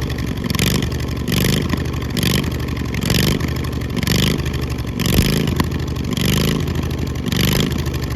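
Old riding lawnmower engine running loud with no muffler, its pitch and loudness surging up and down about once a second.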